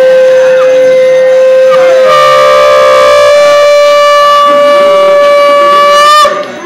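Conch shell (shankh) blown for an aarti: one loud, long held note that steps up in pitch about two seconds in and cuts off near the end.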